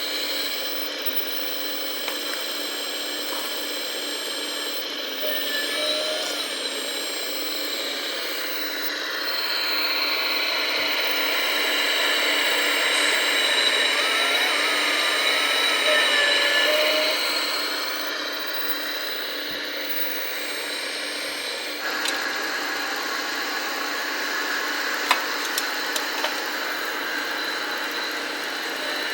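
Small electric motors and gearing of RC model trucks and construction machines whining steadily, growing louder through the middle and then changing abruptly about two-thirds of the way through, with a few sharp clicks near the end.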